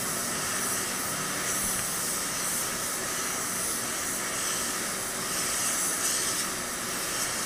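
Gravity-feed automotive spray gun spraying primer onto a bumper: a steady hiss of compressed air and atomised paint, trigger held for one long unbroken pass.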